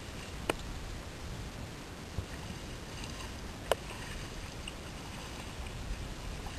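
Steady wind and water noise at the side of a small boat, with water churning against the hull, broken by a few sharp knocks, the loudest about three and a half seconds in.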